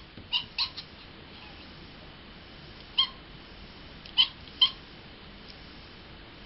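Domestic cat giving short, high, bird-like chirping meows at the sight of a fly. There are about six brief chirps: three in the first second, one about three seconds in, and two more just past four seconds.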